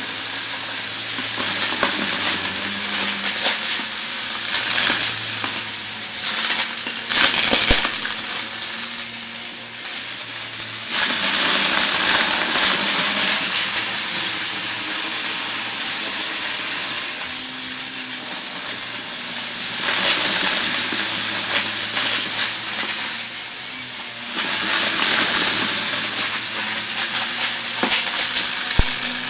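Vacuum cleaner running and sucking up crunchy debris, a dense crackling over the steady rush of air and motor hum. The motor pitch and loudness shift as the head is pushed back and forth.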